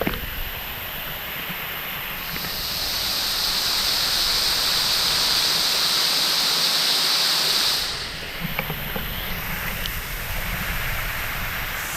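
Rushing water of a waterfall, a steady wash of noise, with a louder even hiss joining it from about two seconds in and stopping suddenly about eight seconds in.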